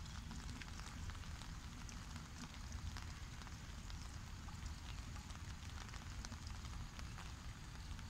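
Steady light rain pattering on the path and grass, scattered with many small drop ticks, over a low rumble.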